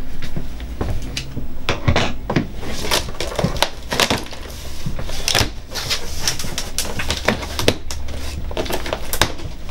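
Packing tape being cut with scissors and the cardboard flaps of a box scraped and pulled open by hand: an irregular run of sharp clicks, rips and scrapes.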